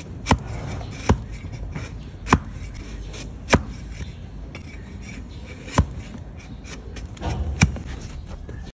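Flat-bladed farrier's hoof cutter paring horn off a donkey's hoof braced on a wooden block. It makes about six sharp chopping knocks a second or two apart, with scraping and rubbing of the blade on horn between them.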